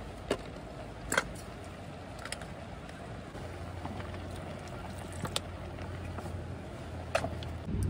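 Water poured from a plastic water jug into a metal cooking pot of chopped vegetables and pork, starting a few seconds in. A few sharp clinks of metal camping gear being handled, over a steady background rush.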